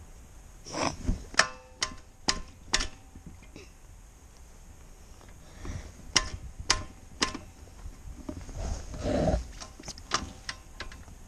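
A series of sharp metallic clanks and knocks, some ringing briefly, in two clusters about a second in and about six seconds in, with no engine running.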